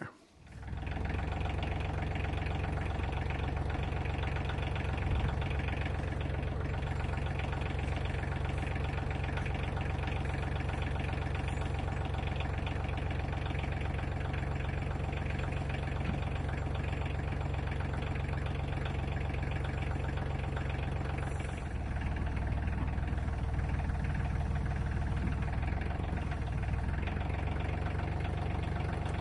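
Tractor engine running steadily while working with its front forks; its note shifts briefly about three-quarters of the way through.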